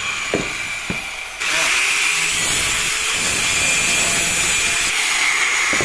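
Makita handheld disc saw running and cutting into a PVC pipe near its end cap: a steady motor whine with grinding, which gets louder and fuller about a second and a half in and then holds steady.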